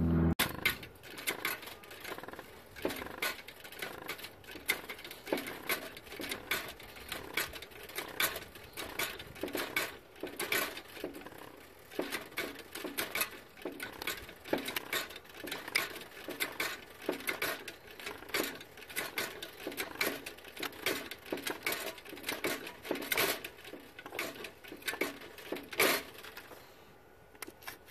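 Hand-operated hydraulic pump being stroked over and over, a steady run of clicks and knocks about two a second, forcing fluid into the cylinder of a 2 hp Witte stationary engine to press its stuck piston out. The strokes stop shortly before the end.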